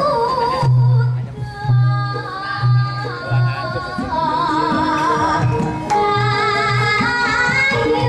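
Javanese traditional music: a woman sings long notes with a wavering vibrato over deep hand-drum strokes from the kendang, several in the first half and again near six seconds in.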